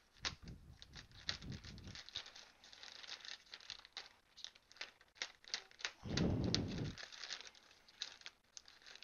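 Plastic bag of garden soil being opened and handled: irregular crinkling and crackling of the plastic, with a louder, denser rustle about six seconds in that lasts about a second.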